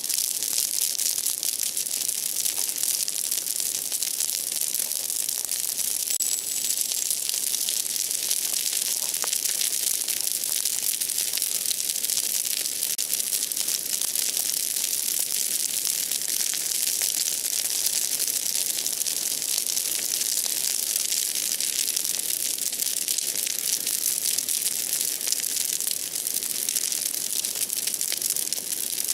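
Large outdoor bonfire of broken tree branches burning with a dense, steady crackling and hissing, many fine pops throughout. The branches were soaking wet.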